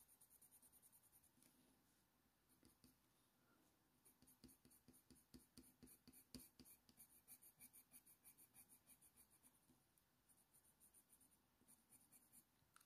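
Faint scratching of a Faber-Castell Polychromos colour pencil stroking across hot-press watercolour paper. It lays down short, repeated fur strokes, a few per second, with a brief lull about two seconds in.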